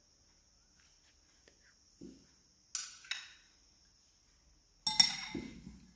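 A metal spoon tapping and scraping against a small glass bowl as sauce is scooped into a glass mixing bowl: a soft knock, two sharp clinks, then a louder clatter of ringing clinks near the end.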